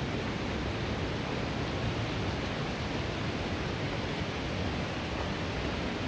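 Steady rushing of a canyon stream, a continuous even hiss of flowing water.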